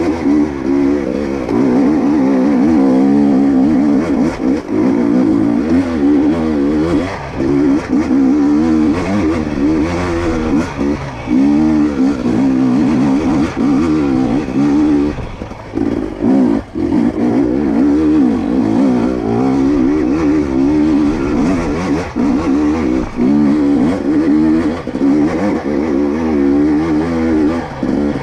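2022 GASGAS EC250 two-stroke dirt bike engine running under constant throttle changes on tight trail, its pitch rising and falling continuously. About halfway through it drops away twice, briefly, as the throttle is shut.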